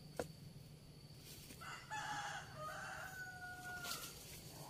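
A rooster crowing once, faintly: a drawn-out call of about two seconds that ends on a long held note. A sharp knock sounds just after the start.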